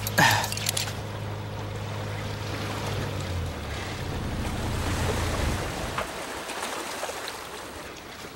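A boat's motor running with a low, steady hum, which cuts off about five and a half seconds in, over a steady wash of wind and water. This is a cartoon soundtrack effect of a sailboat motoring out before it goes under sail.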